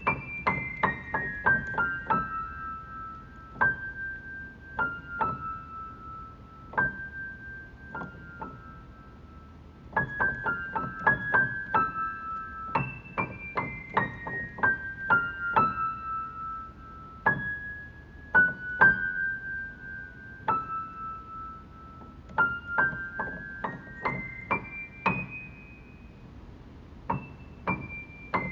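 Background music: a solo piano melody of single high notes, falling in quick runs near the start and rising step by step near the end.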